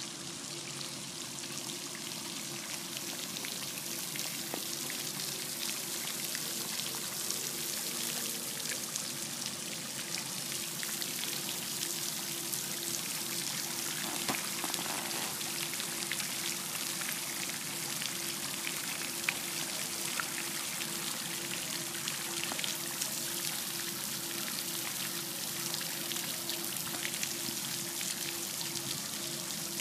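Small floating fountain in a reflecting pool, its spray pattering steadily back onto the water surface and growing a little louder over the first several seconds. A faint steady hum runs underneath.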